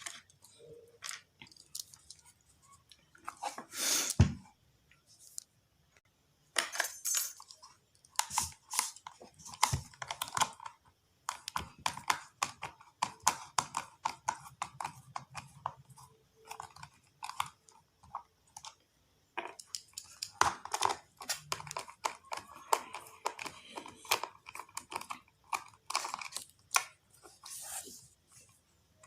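A portable speaker's casing being worked open by hand: an irregular run of clicks, scrapes and crackles, with a louder knock about four seconds in.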